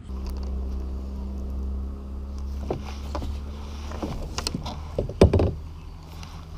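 Knocks and rubbing of an angler moving around in a plastic sit-on-top fishing kayak and handling the body-mounted action camera, with a low steady hum over the first two and a half seconds and a sharp knock about five seconds in.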